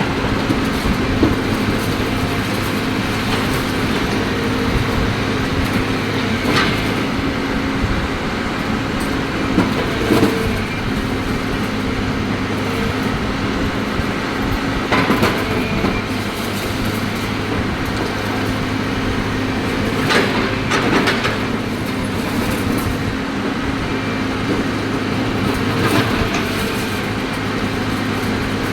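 Cat excavator's diesel engine running steadily under load, with occasional sharp knocks and cracks from the machine working broken concrete.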